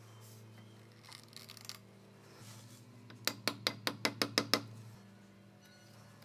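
A quick run of about eight sharp clinks, glass and metal, as a cork and its wire cage are fitted onto a glass wine bottle, over a steady low hum.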